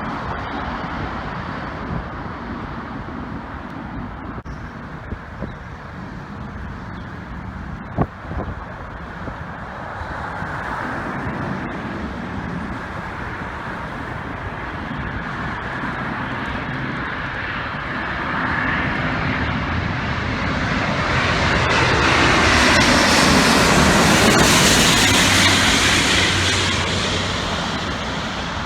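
Jet airliner on final approach passing low overhead: its engine noise builds over several seconds in the second half, peaks a few seconds before the end, then starts to fade. Steady road traffic and wind noise lie underneath, with one sharp click about eight seconds in.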